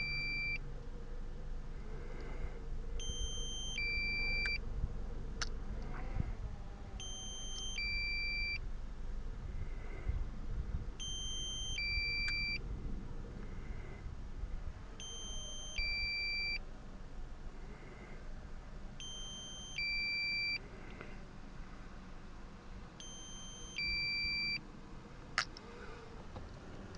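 DJI drone remote controller sounding its low-battery warning. A two-note electronic beep, a higher note then a lower one, repeats about every four seconds; the pilot calls it pretty obnoxious.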